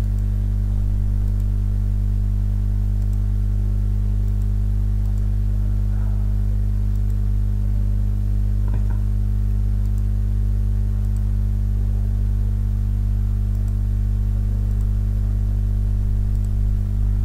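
Steady electrical hum with a stack of evenly spaced overtones, constant throughout, with a few faint clicks scattered through it.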